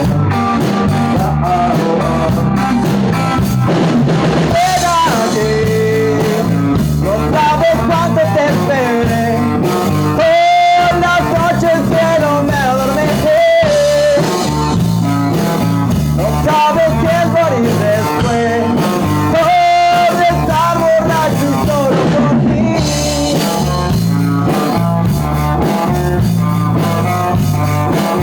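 A rock song playing, with a singing voice over guitar and a drum kit keeping a steady beat.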